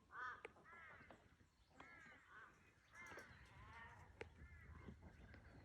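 Faint short calls from young animals, about six of them in a loose series, each a brief rise-and-fall call.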